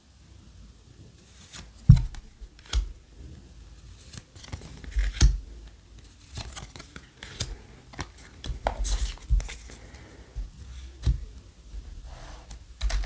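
Trading cards being leafed through by hand, with irregular clicks and snaps of card against card and a few soft thumps, the loudest about two seconds in. Near the end, hands handle a cardboard booster box.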